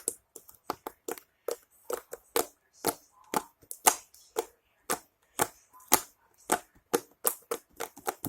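Homemade glue, flour, Dawn and Tide slime being squeezed and worked in the hands, giving sharp wet pops and clicks, about three or four a second at an uneven pace.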